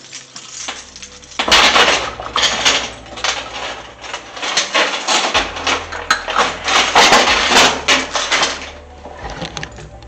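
Coins clattering and jingling as a hand scoops them out of the full coin box of a coin-operated laundry machine: a dense run of metallic clinks starting about a second and a half in and dying away near the end.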